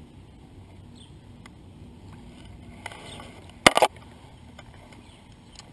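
Handling noise from landing a small panfish on spinning gear: a brief, loud clatter of sharp knocks a little past halfway as the rod is swung toward the bank, over faint steady background noise.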